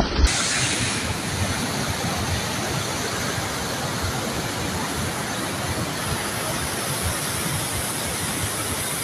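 Muddy floodwater rushing through a swollen river channel: a steady, even rush of water that cuts in sharply just after the start.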